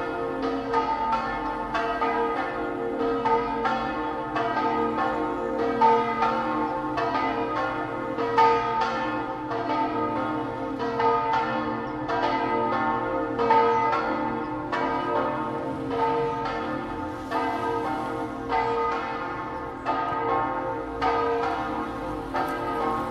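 Several church bells ringing together, struck in quick succession about three times a second, their tones overlapping.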